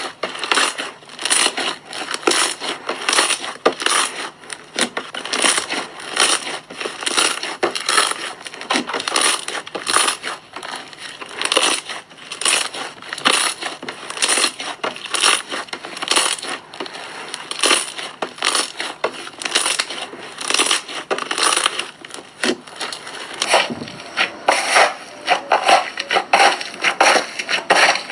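Slime being squeezed and worked by hand, a dense, irregular run of crackling clicks.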